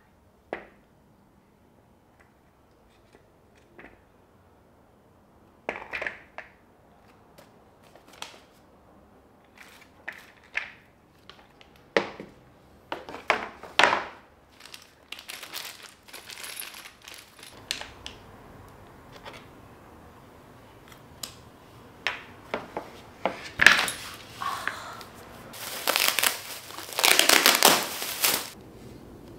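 Plastic parts of a flat-pack office chair being handled and set down on a hard floor, giving scattered knocks and clicks. Near the end, the plastic wrapping on the mesh seat crinkles and tears as it is pulled off, the loudest sound.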